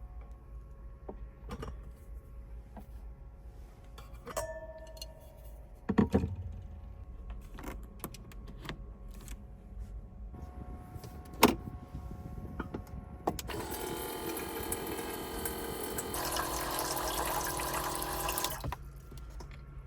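Scattered small clicks and knocks from things being handled, with a thud about six seconds in and a sharp click near the middle. Then about five seconds of running or pouring water, which stops suddenly.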